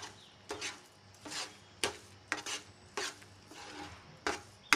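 Slotted steel spatula scraping across the bottom of a pan, about two strokes a second, as it stirs a thick milk-and-chhena mixture while the added sugar dissolves into it.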